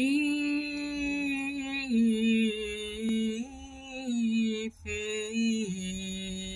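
A solo voice chants a slow Byzantine hymn in plagal fourth mode, holding long melismatic notes that step down and back up in pitch. There is a short breath break near the end.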